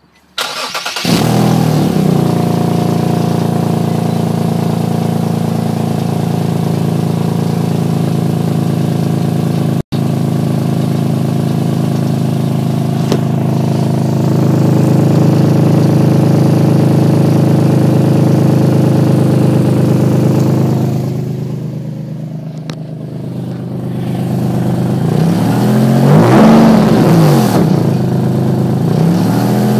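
An engine with an exhaust leak starts up about half a second in and then idles steadily. It is revved up and back down a couple of times near the end.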